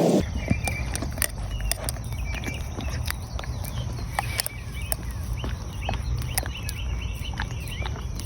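Dog licking and smacking at peanut butter, a string of irregular wet clicks. Small birds chirp throughout over a steady low rumble.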